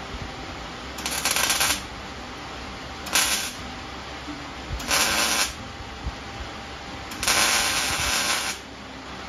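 MIG welder welding sheet steel on a car's fender apron in four short bursts, about 1, 3, 5 and 7 seconds in, the last and longest lasting about a second and a half.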